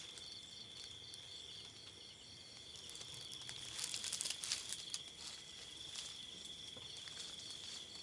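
Night insects singing: a steady high-pitched trill with a faster pulsing note above it. Over it, the rustle and crunch of dry grass and leaves underfoot, busiest about four seconds in.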